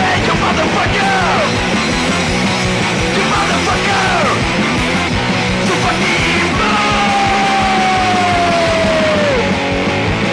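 Punk rock song playing loud, with distorted electric guitars, bass, drums and yelled vocals. About two thirds of the way through, a long held note slides down in pitch.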